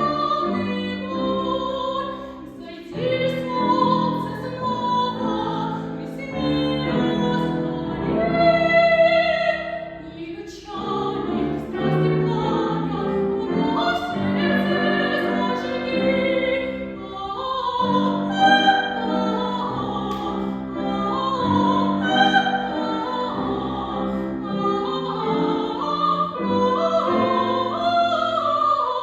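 A woman singing in a classical, operatic style, with piano accompaniment. The notes are held with vibrato, with brief breaks between phrases.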